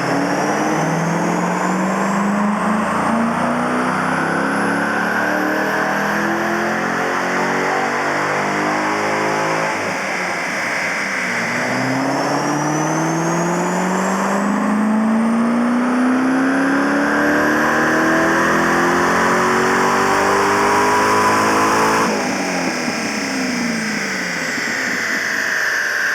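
Supercharged V8 at wide-open throttle, its revs climbing steadily with a high blower whine rising alongside. The revs dip about ten seconds in, climb again, then drop off sharply as the throttle is closed about 22 seconds in.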